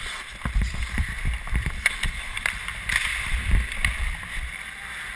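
Ice hockey play heard from a helmet camera: skate blades scraping the ice and irregular low thumps from the skating, with a few sharp clacks from sticks and puck, about 2, 2.5 and 4 seconds in.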